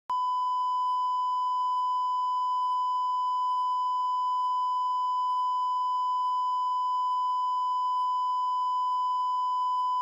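Censor bleep: one steady electronic beep at a single pitch, dubbed over the soundtrack. It starts abruptly and holds at an even level throughout.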